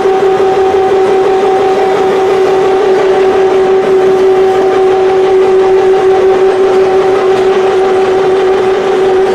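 Serrated blade grinding machine running with a loud, steady hum: one strong unchanging tone with a fainter one above it, over a constant hiss.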